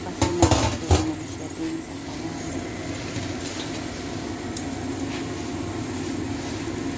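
Marinade sauce boiling hard in a pot around a whole chicken, a steady bubbling rumble. A few knocks against the pot come in the first second.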